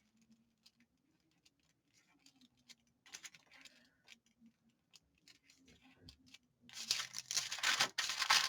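Paper being handled: faint scattered rustles and taps, then louder crinkling and rustling of paper from about seven seconds in.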